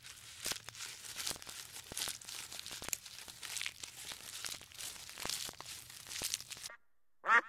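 Leaves and twigs crackling and tearing in irregular snaps as giraffes pull browse from a hanging bundle of leafy branches. This cuts off near the end, and a ruddy shelduck's call begins right at the close.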